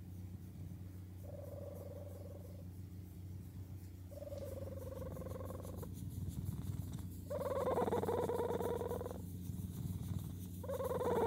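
A domestic cat purring steadily while being stroked. Over the purr come four drawn-out, low, mewing calls, each one to two seconds long and each louder than the last, the final one falling in pitch.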